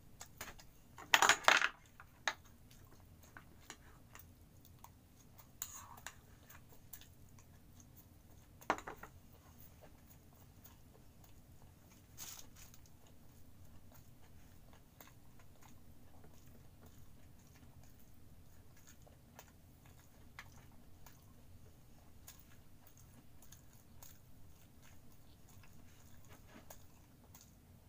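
A quick cluster of clinks of a metal utensil against a ceramic bowl about a second in, then a few single clicks and soft eating sounds.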